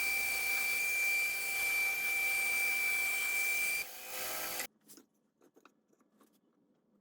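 Power saw running with a steady high whine while ripping thin hardwood strips. About four seconds in the sound drops, and just under a second later it cuts off abruptly, leaving only a few faint taps.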